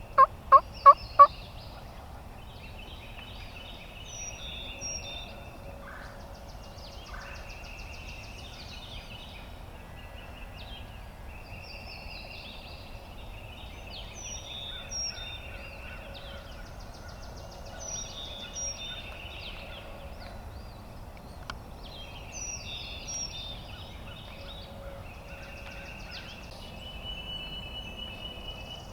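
A run of five loud turkey yelps, about four notes a second, right at the start. Songbirds chirp and trill faintly throughout.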